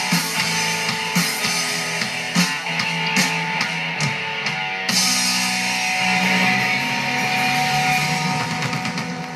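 Rock song with guitar and drum kit playing.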